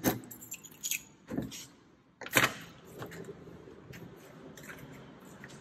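Door lock and lever handle clicking as a door is unlocked and opened, with a sharp knock of the latch about two and a half seconds in, followed by faint handling ticks.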